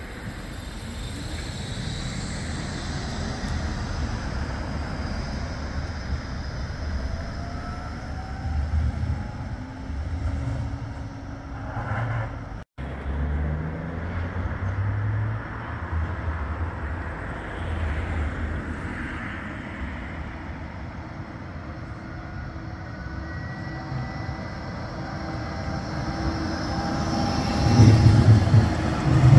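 Bombardier Flexity 2 trams running past at low speed on street track: a low running rumble with the thin, gliding whine of the electric traction motors. Near the end a tram comes up and passes close, and the sound grows loud.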